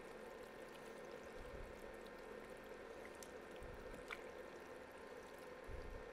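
Faint wet squelching of sauce-coated penne being stirred and tossed with a wooden spoon in a mixing bowl, with a few soft knocks, over a steady low hum.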